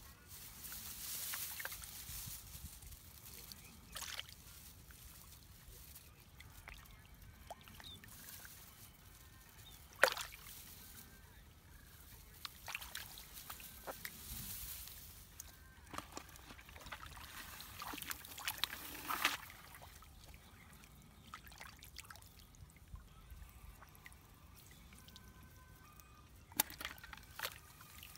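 Hands sloshing and splashing in shallow muddy paddy water, in short intermittent patches of trickling and small splashes, with one sharp click about ten seconds in.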